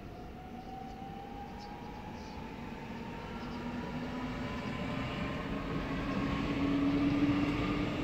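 Class 440 (Alstom Coradia Continental) electric multiple unit pulling away, its traction-motor whine rising steadily in pitch as it gathers speed, over the rumble of its wheels. It grows louder throughout.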